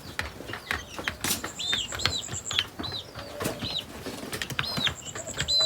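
Young chickens peeping in short, high, arched chirps, several in a row, over scattered clicks and taps. A thin high trill sounds twice, about a second in and near the end.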